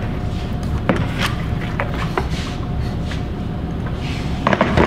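Scattered light knocks and clicks of tools being handled on a plywood workbench (C-clamp, jigsaw and its cord), with a quick cluster of knocks near the end, over a steady low hum.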